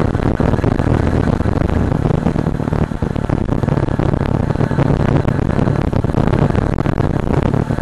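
Yamaha R15's single-cylinder engine running steadily at highway speed, its low hum half buried under loud, constant wind rush on the bike-mounted camera's microphone.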